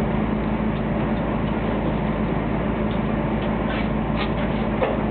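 A fishing boat's engine running steadily, with a few faint clicks between about three and a half and five seconds in.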